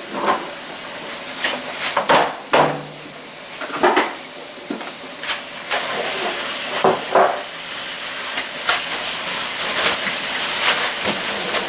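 Jars, bottles and food containers knocking and clinking as they are handled and set down while a refrigerator is emptied, a dozen or so irregular knocks over a steady hiss.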